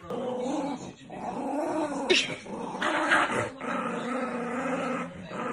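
Small dogs growling, in several stretches with short breaks between them.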